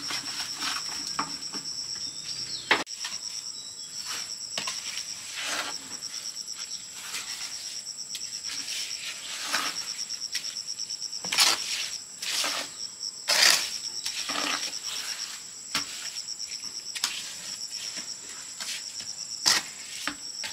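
Insects chirring as a steady, high-pitched trill, with scattered short knocks or taps over it, the loudest a little past the middle.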